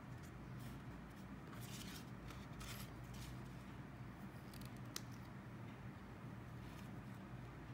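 Faint rustling of a loose sheet of paper being moved and laid flat on a sketchbook page, a few soft rustles in the first half, then a single sharp click about five seconds in, over a steady low room hum.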